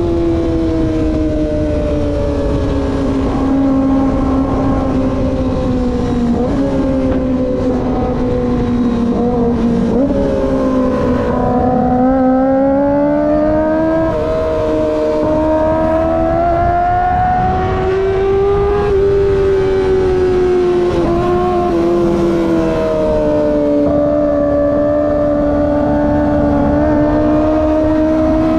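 Kawasaki ZX-25R's 250 cc inline-four engine running under way, its high-pitched note rising and falling with the throttle. It dips sharply about ten seconds in, climbs over the following several seconds, then settles into a steady note. A low rushing noise runs underneath.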